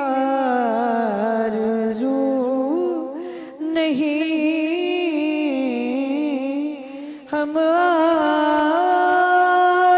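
A woman singing an Urdu naat unaccompanied into a microphone, drawing out one long wavering melismatic phrase. There is a short breath break about three and a half seconds in, and the next line, starting on "ham", begins about seven seconds in.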